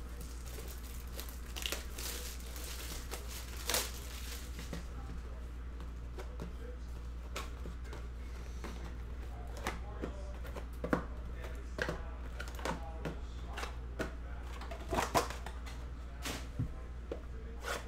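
A Bowman Sterling card box being unwrapped and opened by hand: crinkling and tearing of the wrapper in the first few seconds, then scattered taps and clicks as the cardboard box and its mini boxes are handled and set down. A steady low hum runs underneath.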